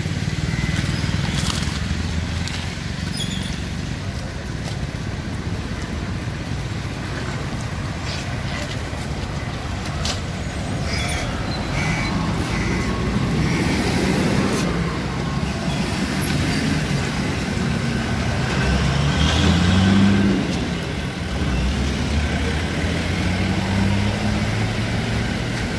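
Road traffic running by: a steady low rumble with vehicle engines rising and falling, louder in the second half. Scattered small knocks and rustles come from a cast net being handled on concrete.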